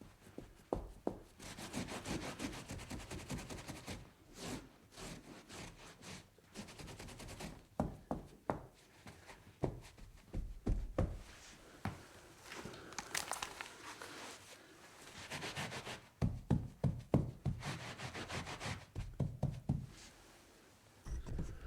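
Wiping and scrubbing on a wooden tabletop: rubbing strokes with scattered light knocks and taps.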